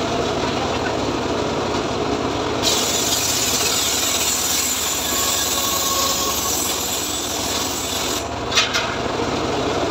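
Homemade engine-driven circular saw bench (gergaji srekel) running steadily, its blade ripping lengthwise through a teak log. The loud hiss of cutting starts about two and a half seconds in and stops about eight seconds in. Two sharp knocks follow near the end.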